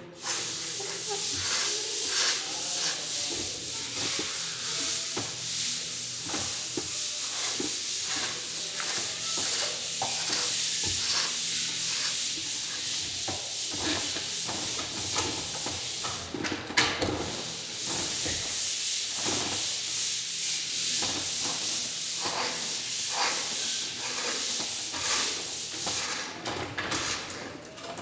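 A plastering tool scraping over a plaster of Paris ceiling in many short strokes, a steady hissing scrape with one sharper knock about 17 seconds in.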